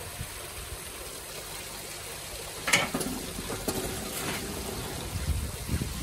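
Steady running and splashing water from the garden pond, with a sharp knock about three seconds in and a couple of fainter ones after it.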